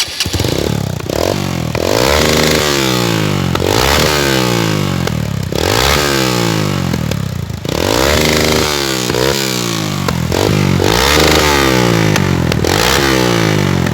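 Honda CG 125 Fan single-cylinder motorcycle engine blipped again and again through a Pop 110 'roncador' muffler welded onto its exhaust, each rev rising and falling in pitch. The welded exhaust joint leaks slightly; the owner means to fix it with a new ring.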